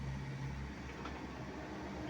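A motor running steadily with a low hum; one held tone drops out early and a higher one comes in near the end.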